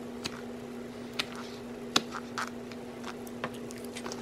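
Metal fork clicking and scraping in a plastic container of salad: a handful of short, sharp clicks over a steady low hum.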